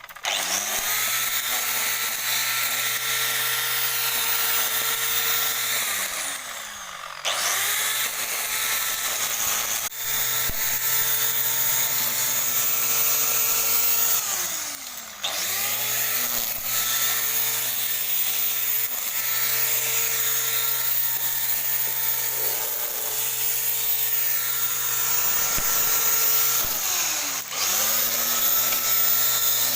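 Grass trimmer running at full speed with a steady high whine. Three times, about 7, 15 and 27 seconds in, it is briefly let off: the pitch drops, then climbs straight back up to speed.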